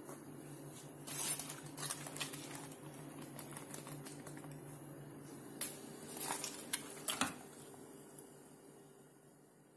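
Cabbage leaves being handled and put into a steel cooking pot: scattered crisp rustles, crackles and light knocks, in two clusters, over a steady low hum.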